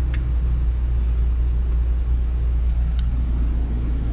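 Jeep's engine idling steadily, a low hum heard from inside the cabin, with a faint click about three seconds in.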